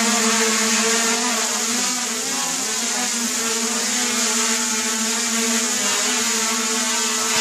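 Brushless motors and propellers of a homemade quadcopter running together, a steady whir with a strong hiss, held down by tether strings while its PID stabilising controller is tested. The pitch wavers briefly about two and a half seconds in, then steadies.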